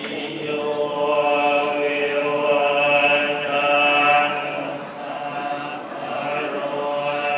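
Thai Buddhist monks chanting Pali verses together in long held notes, a steady droning recitation.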